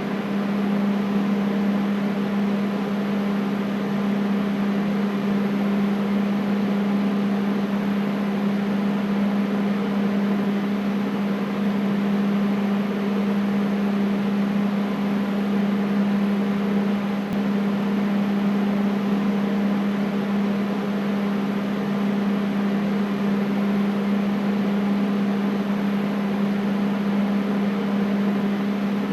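Air conditioner running steadily: an even rush of airflow with a strong, constant low hum from its motor.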